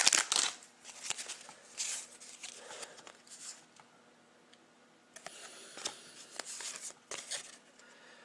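Pack wrapper crinkling briefly at the start, then scattered soft rustles and clicks of Panini hockey trading cards being handled and slid through the hands.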